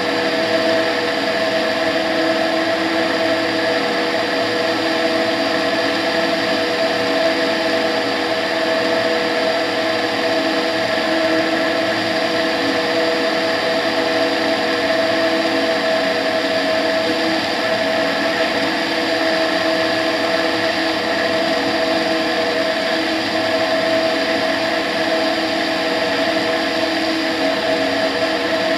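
Humbert Tetras ultralight's engine and propeller running steadily in level flight: a constant drone with several fixed tones over the rush of passing air.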